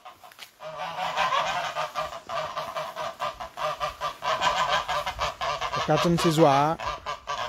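A flock of geese honking, many calls overlapping in a continuous chatter that starts just under a second in, with one louder, drawn-out honk near the end.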